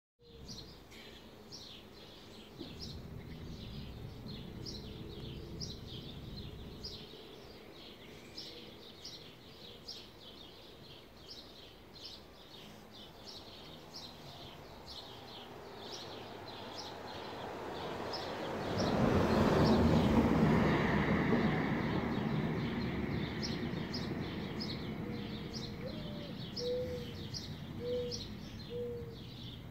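Birds chirping over and over in short, high, repeated notes, about two a second. A louder rushing noise swells and fades about two-thirds of the way in.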